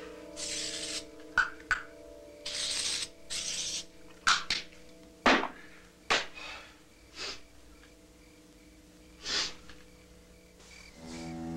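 Personal grooming sounds at a mirror. Two short hissing bursts come first, then a string of sharp smacks and short puffs at uneven intervals.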